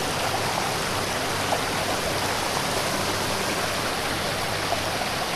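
A flooded stream rushing hard, swollen far above its normal level: a steady, unbroken rush of water.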